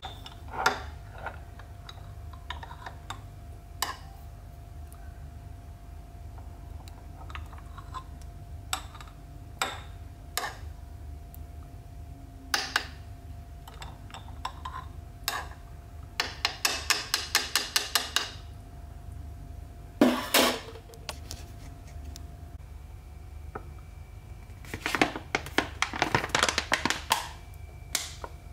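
A metal spoon clinking and scraping against a glass jam jar as jam is scooped out and dropped onto yogurt in a second glass jar. There are scattered light clinks, a quick run of about a dozen taps partway through, and one louder knock a few seconds later. A dense flurry of clicks comes near the end, over a faint steady hum.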